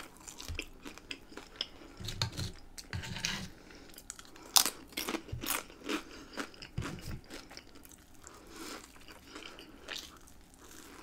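Close-miked eating sounds: chewing with many short, sharp crunches from fried food such as fries, the loudest about four and a half seconds in. Near the end comes a bite into a burger.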